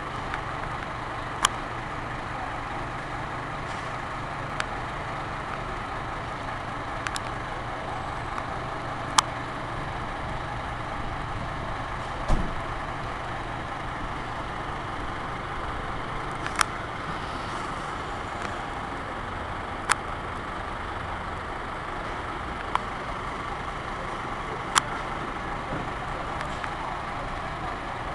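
Fire engine's diesel engine running steadily while parked. About eight sharp clicks come at irregular intervals over it, with one duller thump near the middle.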